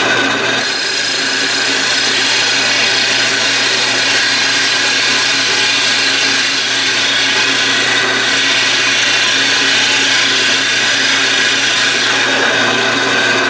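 Hole saw in a power drill cutting through a wooden board, the motor running steadily as the teeth saw through the wood. The cut overlaps the board's edge so the saw breaks out the side and the sawdust can escape, letting it cut fast without burning the wood.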